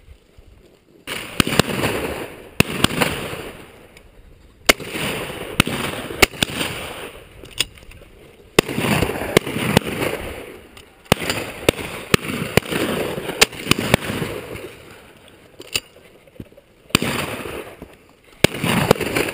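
A string of shotgun shots, about ten at irregular intervals, each a sharp crack followed by an echo that rolls on for a second or two.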